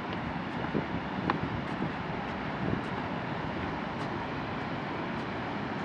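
Steady rushing of Brooks Falls on the Brooks River, with light footsteps knocking on a wooden boardwalk.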